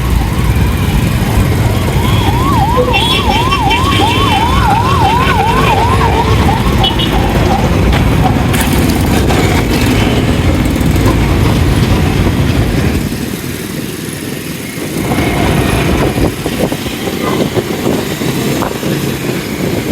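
Riding noise from a Bajaj Pulsar 180F in traffic: its engine running with road and wind rumble. About two seconds in, a siren yelps rapidly up and down for about five seconds, then fades.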